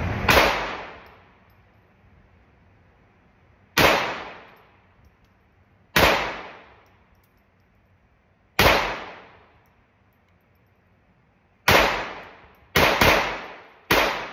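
FN 502 .22 LR semi-automatic pistol fired eight times at an uneven, unhurried pace, the last three shots close together; each crack echoes briefly in the enclosed indoor range lane.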